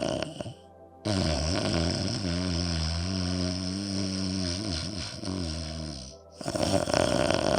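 Ujjayi pranayama breathing: slow breath drawn through a narrowed throat, making a snore-like sound. A hissing breath gives way about a second in to a long, low, wavering snore-like drone lasting about five seconds, then a short pause and another hissing breath near the end.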